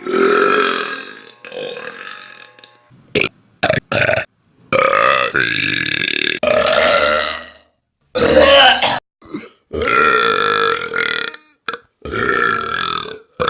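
A string of loud human burps, one after another, about eight in all: a few short ones and several long, drawn-out ones of two to three seconds, each cutting off abruptly.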